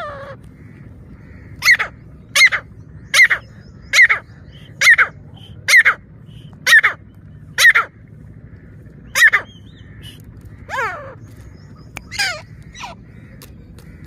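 Grey francolin calling: a run of loud, harsh notes a little under a second apart, then a pause and a few softer calls near the end.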